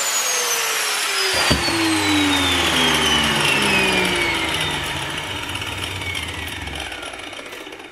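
DeWalt angle grinder with a cut-off wheel coasting down after being switched off, its whine falling steadily in pitch and fading over several seconds. A single sharp clack about a second and a half in.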